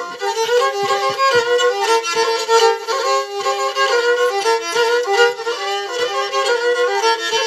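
Pontic lyra (kemenche) playing a fast instrumental melody over a steady drone string.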